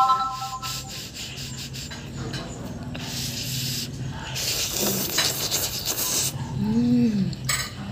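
Ramen noodles slurped off chopsticks: two long hissy slurps, about three seconds in and again from about four and a half to six seconds. A short hummed voice sound follows near the end.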